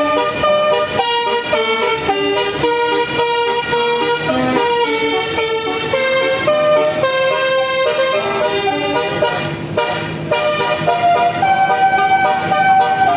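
Bus telolet horn of the Basuri type, a multi-note air horn playing a tune: loud pitched notes stepping one after another in quick succession, with a brief dip about ten seconds in.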